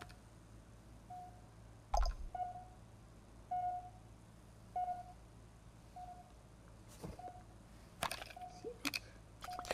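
A short electronic beep repeats about once a second, a low-battery warning from a sci-fi eye-implant display. Several sharp clicks fall between the beeps, one about two seconds in and a few more near the end.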